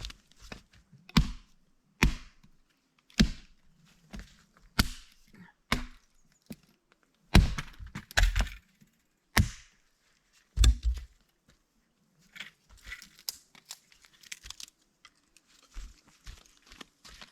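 Small sticks of kindling being split: about nine sharp wooden strikes, roughly one a second, then softer cracking and rustling for the last few seconds.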